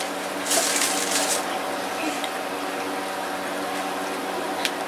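Steady room hum of several fixed tones over a hiss, with a brief rustle of handling from about half a second to a second and a half in.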